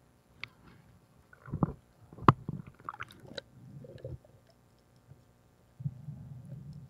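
Muffled underwater sounds picked up by a camera in the water: irregular knocks and clicks with low gurgling rumbles. The sharpest click comes a little past two seconds in, and the rumble comes back near the end.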